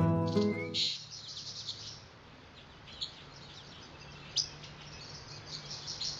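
Faint chirping of small birds, many short high calls scattered throughout. A plucked-guitar music cue dies away in the first second.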